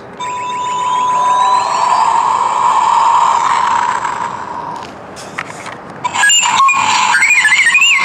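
The Air Hogs Millennium Falcon quad's remote controller playing its Millennium Falcon sound effects. First comes a rushing engine-like noise with gliding electronic tones, which fades out about five seconds in. About six seconds in a louder warbling electronic sequence starts.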